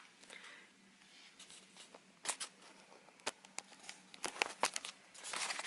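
Quiet room with scattered small clicks and brief rustles of handling, growing busier near the end, over a faint steady hum.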